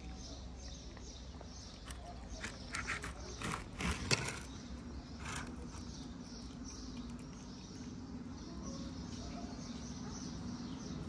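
Cat crunching dry kibble from a plastic food tub: a run of sharp crunching clicks between about two and five and a half seconds in, the loudest about four seconds in, then fainter chewing.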